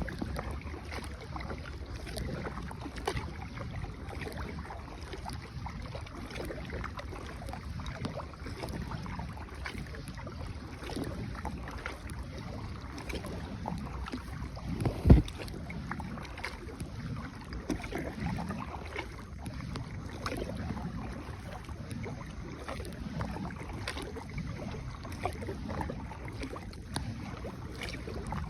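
Small paddled boat on the move: paddle strokes in water with light knocks, and one loud knock about halfway through.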